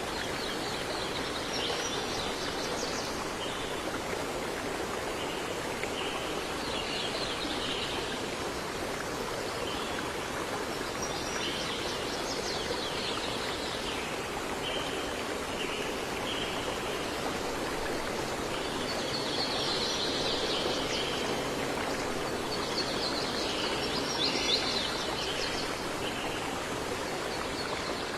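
Steady rush of flowing stream water, with birds singing over it in about five short spells of high chirps a few seconds apart.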